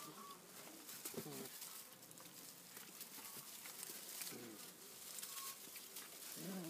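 Young puppies making a few faint, soft low grunts and whimpers, about three short calls.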